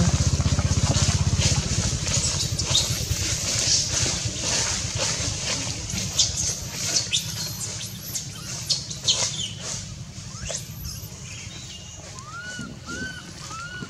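Rustling and crackling of leafy branches over a low rumble that fades, then four or five short squeaky chirps near the end, each rising and falling in pitch.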